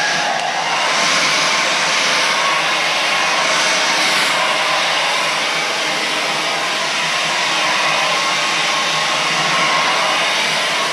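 Remington Hydraluxe Pro hair dryer running, blowing a steady loud rush of air.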